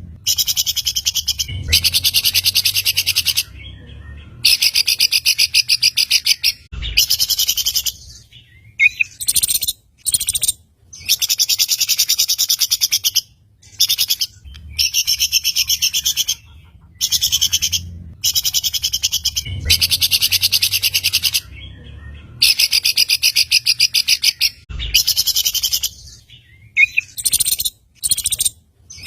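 Songbird singing fast, high trills in bursts of one to three seconds with short gaps between them; the same run of phrases comes round again about every eighteen seconds, as in a looped masteran song recording.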